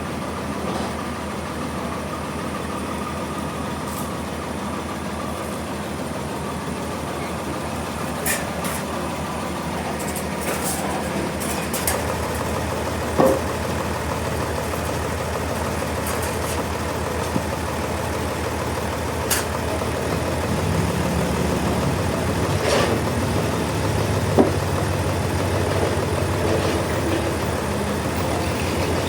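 An engine running steadily, its low hum growing fuller about twelve seconds in, with a few short sharp knocks now and then.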